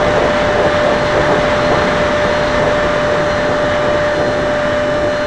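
Small 50mm electric ducted-fan model jet in flight, heard from its onboard camera: a steady rushing of fan and airflow with a constant whining tone.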